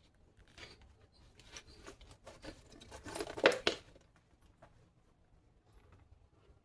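A person drinking almond milk from a cup: a run of small irregular sips, gulps and mouth noises, loudest about three and a half seconds in, then quiet.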